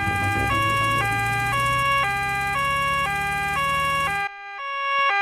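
Cartoon two-tone emergency siren of the doctor's car on its way, switching between a high and a low note about every half second over a low engine hum. The hum stops about four seconds in, and the siren goes on alone, growing louder, until it cuts off at the end.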